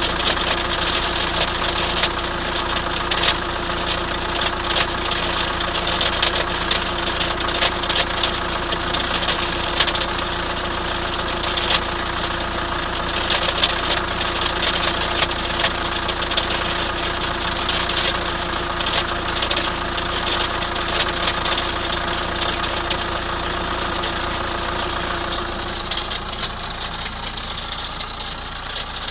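2003 Chrysler Voyager 2.5 CRD four-cylinder common-rail turbodiesel idling, with irregular ticking and knocking over the steady engine note: the abnormal engine noise being shown. It gets a little quieter near the end.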